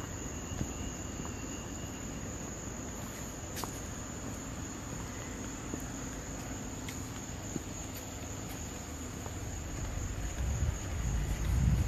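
Night insects chirring in a continuous, steady high-pitched chorus. A low rumble rises near the end.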